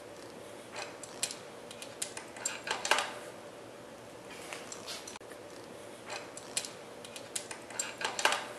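Irregular metal clicks and clinks of an adjustable wrench working the axle nuts of a Shengyi SX2 rear hub motor as they are tightened, over a faint steady hum.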